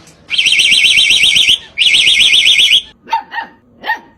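An electronic alarm sounding two long blasts, each a fast warble, followed by a dog giving three short, sharp barks.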